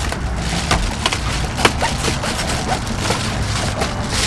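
Scissors snipping through reflective foil bubble wrap insulation, a few sharp snips, with the foil crinkling as it is handled.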